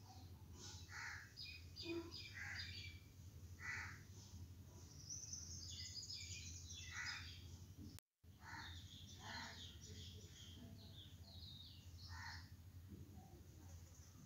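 Faint bird calls: short, rough calls every second or two with higher chirps between them, over a low steady hum. The sound cuts out completely for a moment about halfway.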